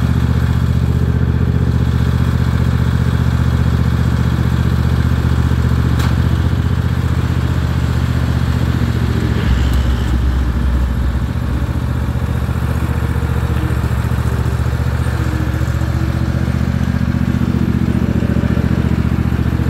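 Ariens Edge 42-inch zero-turn mower's engine running steadily, with a deeper, heavier note for a couple of seconds about halfway through.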